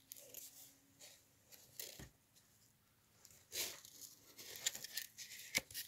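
Faint rustling and a few light taps as the pages of a children's picture book are handled and turned.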